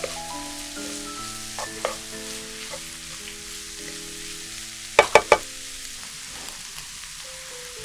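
Sliced vegetables and spinach sizzling in a frying pan as a wooden spatula stirs them, over background music. Three quick sharp knocks about five seconds in.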